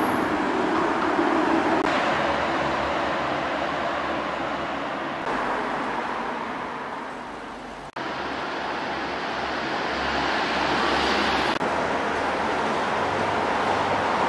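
Steady rush of road traffic. The noise jumps abruptly in level a few times, with a brief dropout near the middle.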